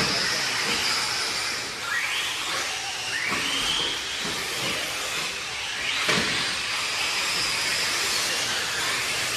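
1/8-scale electric off-road buggies racing: high-pitched electric motor whines rising and falling as the cars accelerate and brake, over a steady hiss of tyres and drivetrains on dirt. Two sharp knocks, one at the start and one about six seconds in.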